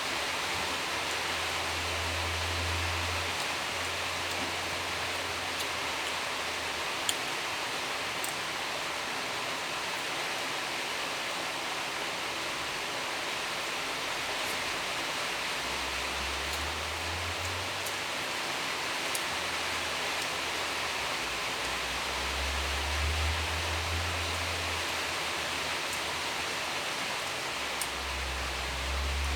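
Steady hiss with a few faint clicks and a low rumble now and then.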